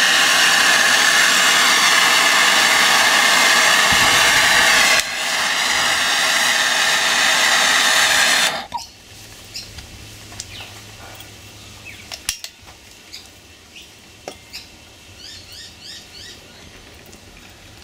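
MAP-gas hand torch flame hissing steadily, briefly dipping about five seconds in and cut off about eight and a half seconds in. After that there are only faint clicks and a few short bird chirps.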